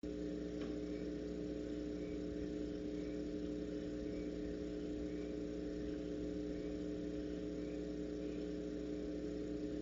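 Steady electrical hum from a barn owl nest-box camera's live audio feed, made of several held tones over a faint hiss.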